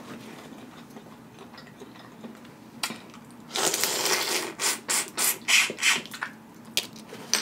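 Close-miked eating of boiled crawfish: chewing with one sharp click about three seconds in, then a long sucking noise followed by a run of short sucks and lip smacks as the crawfish is sucked from the fingers.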